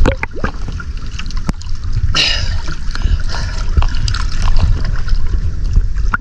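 Sea water sloshing and splashing right at the waterline, with scattered drips and sharp little splashes as a wet fishing net is hauled up out of the sea, and one louder splash about two seconds in.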